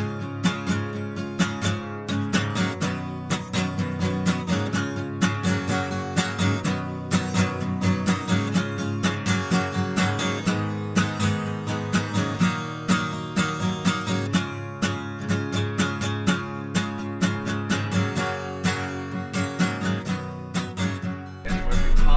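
Background music of strummed acoustic guitar with a steady rhythm. A loud low rumble cuts in just before the end.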